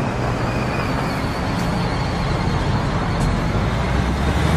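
Road traffic noise with a vehicle engine running steadily close by.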